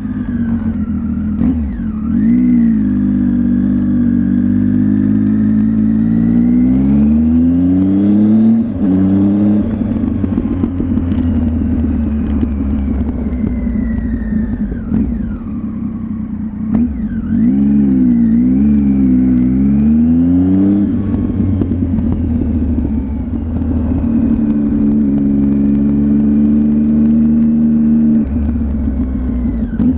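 Triumph Tiger motorcycle engine under way, pulling up through the revs and dropping at gear changes, with stretches of steady cruising between.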